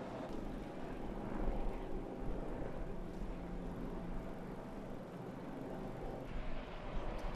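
Steady outdoor rumble with a low engine drone, a little brighter hiss coming in near the end with a few faint clicks.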